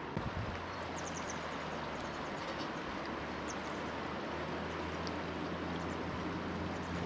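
River water rushing steadily, with a few short, high bird chirps about a second in and again a few times later, over a low steady hum.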